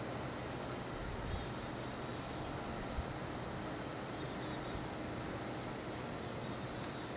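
Steady low background hiss and hum of an outdoor scene, with a few faint, short, high bird chirps and a soft knock about three seconds in.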